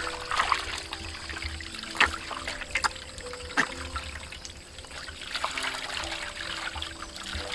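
Water poured from a steel bowl over a skinned whole chicken as it is rinsed, trickling and splashing onto a steel plate, with a few sharper splashes.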